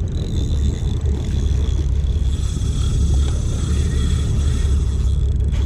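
Steady low rumble on the camera's microphone while a large spinning reel is cranked to bring in a hooked shark, with a thin steady high whine from the reel's gears.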